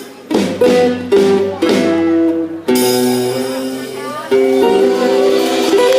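Live band music with no singing: the instrumental close of the song, a run of sustained chords on a plucked string instrument, each chord struck sharply and left to ring, about seven in all.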